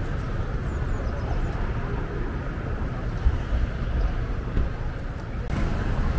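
Urban street ambience: a steady, noisy low rumble of traffic.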